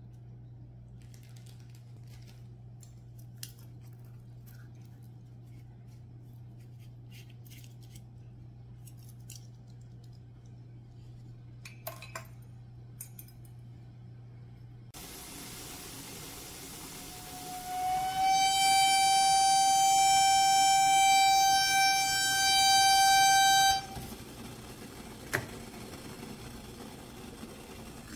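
A stainless steel stovetop kettle whistling at the boil. The whistle rises into one loud, steady high tone that lasts about six seconds and then cuts off suddenly. Before it, a metal tea infuser clinks faintly a few times against a ceramic mug.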